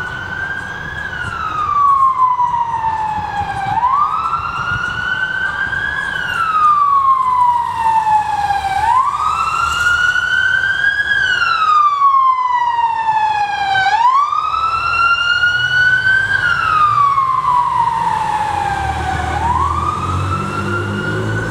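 Electronic siren on a fire department pickup sounding a slow wail. Its pitch climbs for about two seconds and falls for about three, repeating roughly every five seconds.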